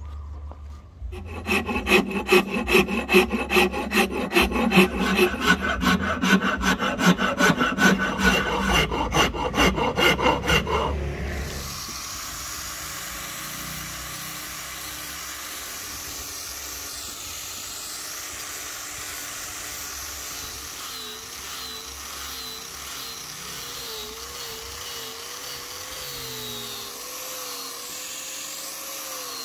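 A rasp worked back and forth over a padauk wood axe handle in quick, rhythmic strokes, stopping about eleven seconds in. After that comes a steady hiss with a faint wavering whine.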